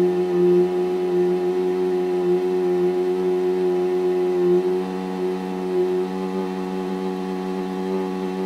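Balloon neck vibrating in a steady droning tone as exhaust from a running Suzuki GD110S motorcycle inflates it; the pitch steps slightly about halfway through.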